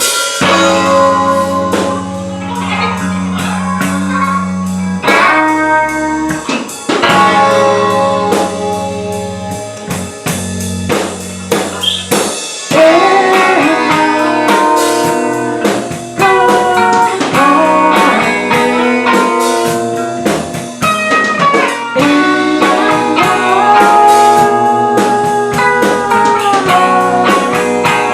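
A band playing a song: guitar with a drum kit.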